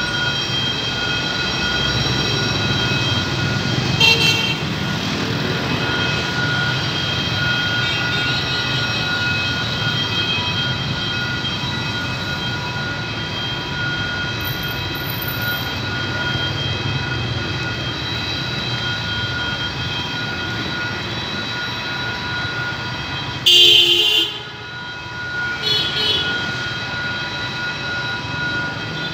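Level-crossing warning alarm sounding steadily over a low rumble of traffic and the approaching train. A loud horn blast sounds once, about three quarters of the way through.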